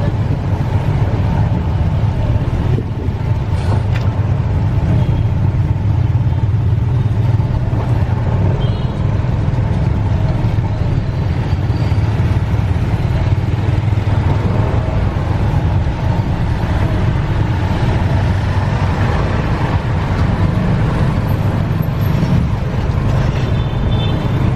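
Steady motor-vehicle traffic noise: a continuous low engine rumble with road and tyre noise of cars and motorbikes.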